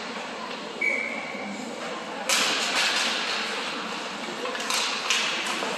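Ice hockey play on a rink: skates scraping on the ice, with a sudden hard hissing scrape a little over two seconds in and a few sharp clacks near the end, over the low chatter of spectators.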